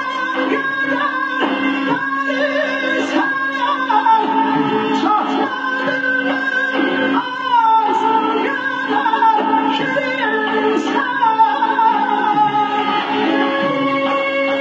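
Azerbaijani song: a sliding, ornamented melody over a steady low drone, with singing.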